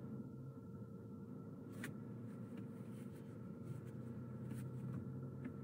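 Low, steady road and engine hum inside a moving car's cabin, with a few light, irregular clicks.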